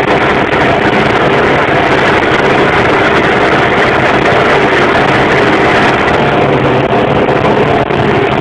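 Tümosan 8175 tractor engine running steadily at working speed while pulling a five-furrow mouldboard plough through the soil.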